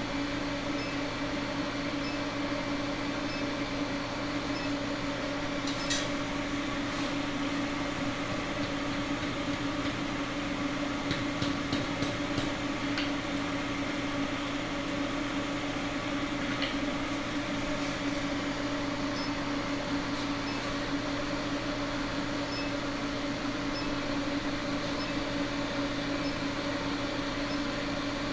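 Steady machine hum of shop equipment, with a few light sharp clicks or taps: one about six seconds in, a quick cluster around eleven to twelve seconds, and one near seventeen seconds.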